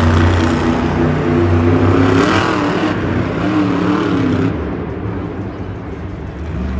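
Monster truck Bakugan Dragonoid's engine revving hard and unevenly through a wheelie run, its pitch rising and falling with the throttle. About four and a half seconds in it eases off and gets quieter.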